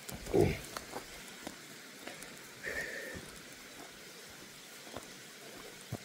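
A hiker climbing a steep mountain path under a heavy pack: footsteps and jacket rustle on a lapel mic, with a heavy breath about half a second in and scattered small clicks and scuffs after it.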